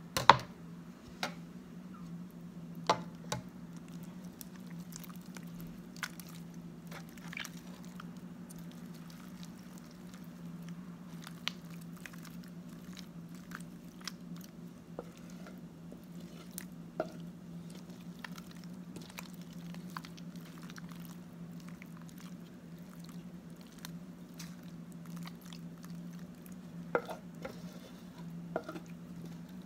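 Cheese-sauced macaroni being scraped from a metal pot into a glass baking dish: soft wet squishing and scraping, broken by sharp knocks of the pot and utensil against the dish, the loudest right at the start and a couple more near the end. A steady low hum runs underneath.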